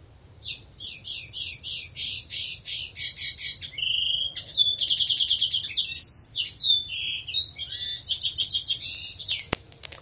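European robin singing a long, varied song: a run of repeated notes, then a short whistle, a fast trill and more varied twittering phrases. A single sharp click comes near the end.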